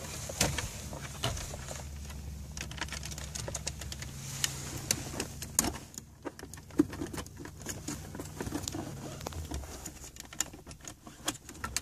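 Small plastic clicks and rattles, an irregular run of them, as the wiring-harness connectors and retaining clips of an Audi Q7's MMI console control unit are handled and pushed to release. Under them a low steady hum that stops about nine and a half seconds in.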